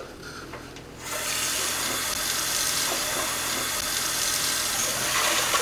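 Kitchen tap running steadily, starting about a second in, as water is run to cover lentils in a stainless steel saucepan in the sink.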